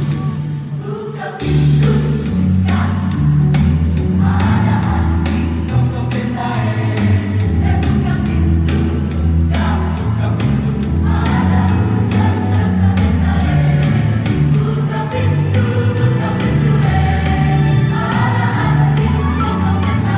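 Mixed choir singing a medley of Indonesian regional songs over an instrumental accompaniment with a steady beat. The full sound drops back briefly and comes in again sharply about a second and a half in.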